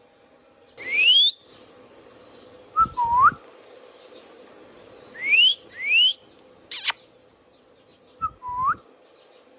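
Indian ringneck parakeet whistling: short rising whistles about a second in and twice more around five and six seconds, two lower hooked calls around three and eight seconds, and one brief sharp shriek near seven seconds.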